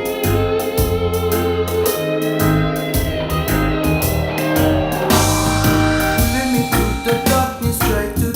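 Instrumental break of a song: guitar and keyboard over deep bass and a steady drum beat, with a rising whooshing sweep about four seconds in that leads into a heavier passage.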